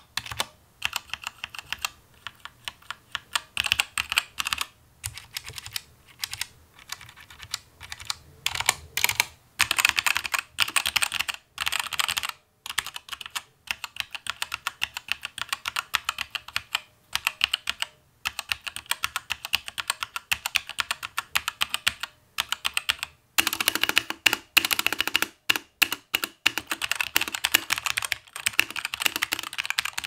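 Keychron K2 V2 metal-frame mechanical keyboard being typed on: Gateron red switches under ABS keycaps clacking in quick, irregular runs with short pauses between them, with a slightly high-pitched sound from the keycaps. The typing gets faster and denser near the end.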